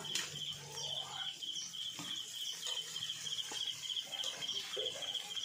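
An insect chirping steadily, about three high pulsed chirps a second, with a few light clinks of a metal ladle against a wok as the chicken is stirred.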